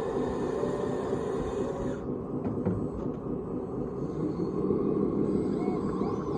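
Radio-controlled scale construction machine running steadily, its motors and hydraulic pump giving a continuous mechanical hum.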